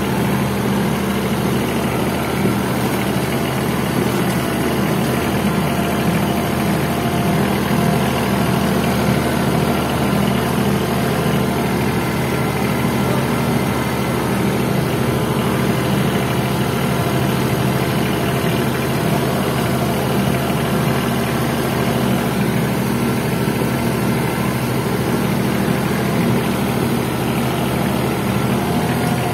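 Small red tractor's engine idling steadily, holding an even pitch and level with no revving.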